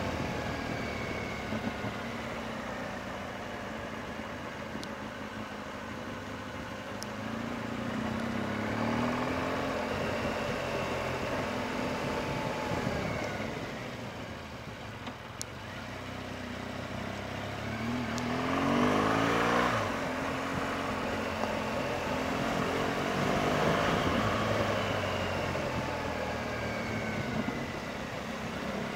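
BMW R1200GS Adventure's boxer-twin engine running on a mountain descent, its revs rising and falling several times with the throttle and gear changes. It is loudest about two-thirds of the way in.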